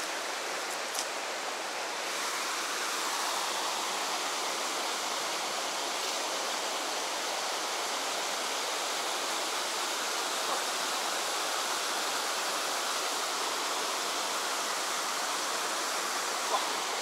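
Mountain creek water rushing steadily.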